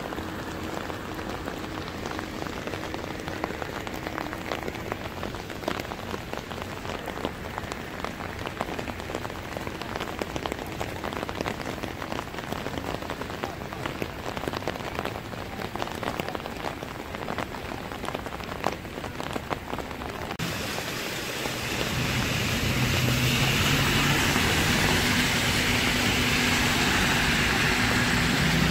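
Heavy rain pattering densely on a flooded street. About 20 seconds in it gives way to a louder, steadier rush of rain with a low hum beneath it.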